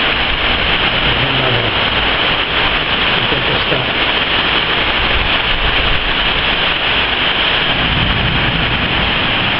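Heavy rain and strong gusting wind of a violent storm, a loud steady rush of noise.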